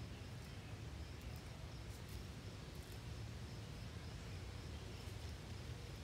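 Pileated woodpecker pecking at a tree trunk: faint, irregular taps spaced a fraction of a second to a second apart, over a low outdoor rumble.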